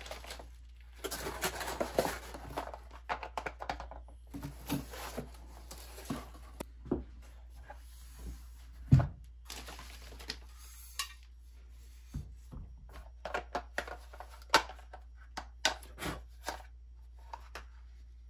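Cardboard shipping box and its inserts rustling and scraping as they are handled, then scattered clicks and knocks of hard parts being picked up and set down on a rubber bench mat, with one heavier thump about nine seconds in.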